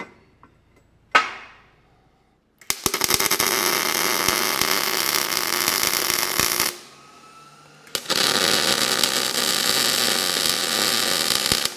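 A single sharp clank about a second in, then a gas-shielded MIG welder's arc crackling and hissing on steel tubing in two runs of about four seconds each, with a short pause between.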